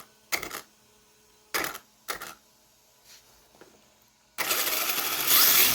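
Traxxas Slash's VXL system (Velineon brushless motor) test-run after reinstallation: a few short bursts of motor and drivetrain noise, then about four seconds in the motor spins up and the gears and drivetrain whir loudly, with a whine rising in pitch near the end.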